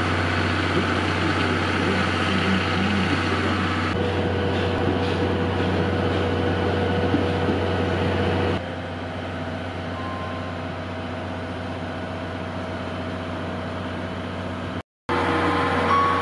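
Tobu 500 series Revaty electric limited express train coming into the platform: a steady hum and rumble that shifts abruptly twice as the shots change. Near the end, after a brief break, a few short electronic chime tones sound.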